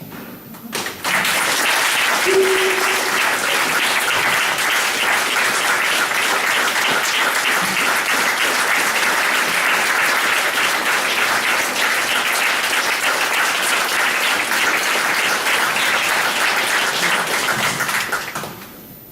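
Theatre audience applauding, a dense steady clapping that breaks out suddenly about a second in and dies away near the end.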